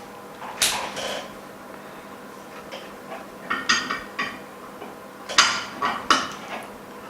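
Scattered sharp clicks and knocks of hard parts being handled and set into a mold: one about half a second in, a quick cluster around the middle and two more near the end, over a faint steady hum.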